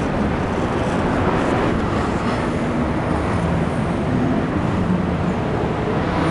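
Steady background din of a busy indoor market hall, with shoppers' footsteps and voices blurred together over a constant low rumble.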